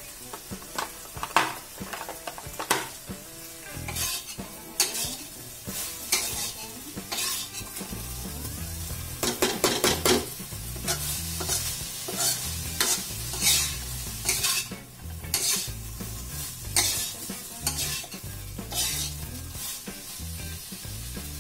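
Metal spatula scraping and clinking against a wok as tempe with chilli and shallots is stir-fried, with a steady sizzle underneath. The strokes come irregularly, about once a second.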